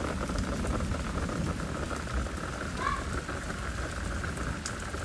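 Steady rain during a thunderstorm, many separate drops ticking over an even hiss, with a steady low rumble underneath.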